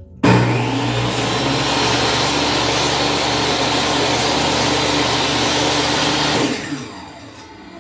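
DeWalt jobsite table saw switched on with a sudden start, running steadily with a motor whine while a pine strip is pushed through the lowered blade to cut a shallow groove. It is switched off about six and a half seconds in and winds down with a falling pitch.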